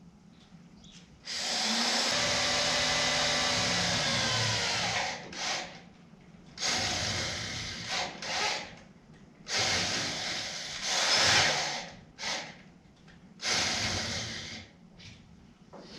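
Power drill drilling holes, running in bursts: one long run of about four seconds whose motor pitch glides as it slows, then several shorter runs.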